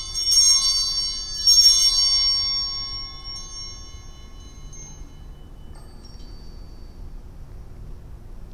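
Altar bells rung at the elevation of the chalice, signalling the consecration: two more strikes in a three-ring sequence, a little after the start and about a second and a half in, each a cluster of high bell tones that dies away within a few seconds.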